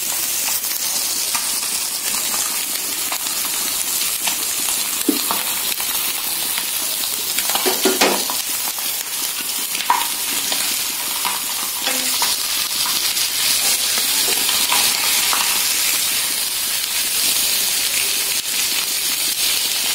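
Spice-coated fish pieces sizzling in shallow oil on a flat iron griddle, a steady frying hiss. A steel spatula scrapes and knocks against the griddle a few times as the pieces are pressed and turned.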